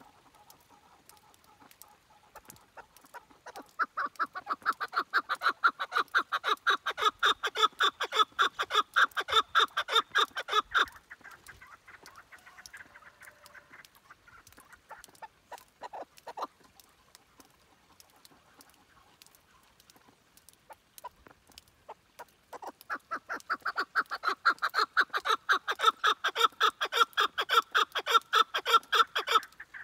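Chukar partridge calling: two long bouts of rapid repeated clucking notes, the first about three seconds in and the second starting a little after twenty seconds, with a few scattered single notes between them.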